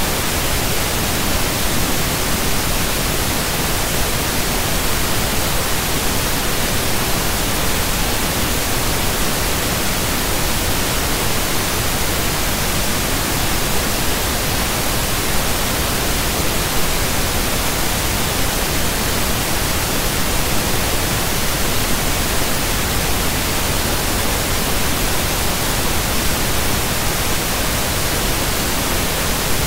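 Loud, steady static hiss that covers every pitch and never changes: electronic noise on the recording's audio track, with no voice.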